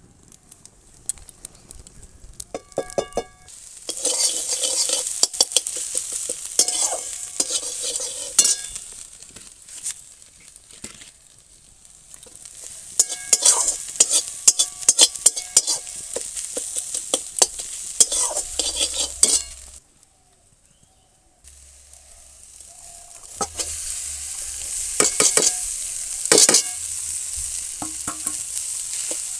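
Rice frying in hot oil in a pan, sizzling, while a spatula stirs and scrapes it with repeated clinks against the pan. The sound stops briefly about two-thirds of the way through, then the sizzling and stirring resume.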